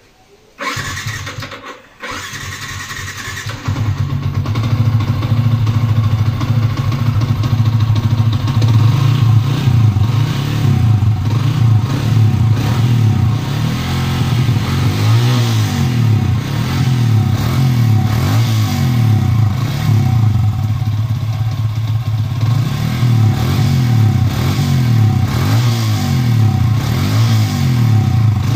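Yamaha Sniper 150 motorcycle engine, a single-cylinder four-stroke breathing through a UMA version 2 aftermarket exhaust with a titanium elbow. It is started about half a second in and catches around two seconds. It then runs louder from about three and a half seconds, revved up and down several times.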